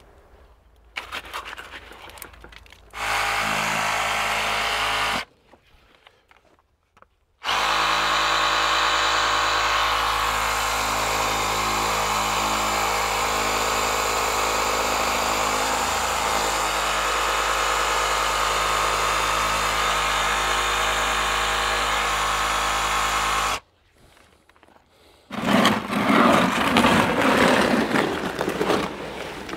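Reciprocating saw running with its edge held against wooden formwork, vibrating fresh concrete to settle it in place of a concrete vibrator: a short run of about two seconds, then, after a pause, a steady run of about sixteen seconds. Near the end, a bucket scrapes as it scoops wet concrete from a wheelbarrow.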